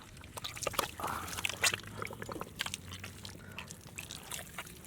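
Muddy water squelching, splashing and dripping in short, irregular wet clicks, as hands work in a flooded eel hole.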